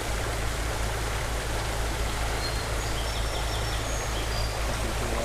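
Small creek water running steadily, an even rushing noise.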